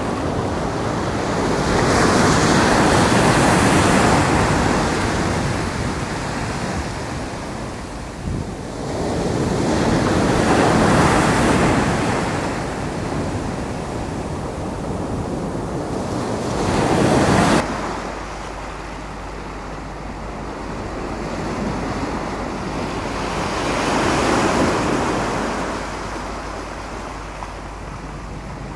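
Sea waves breaking and washing up the sand and around concrete blocks, swelling and fading every several seconds. Wind rumbles on the microphone until it cuts off abruptly about two-thirds of the way through, leaving the quieter lap of the surf.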